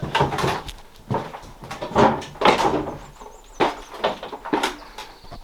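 Irregular knocks, thumps and scuffs of someone moving through a room and handling things, some with short squeaks, about one every half second to second.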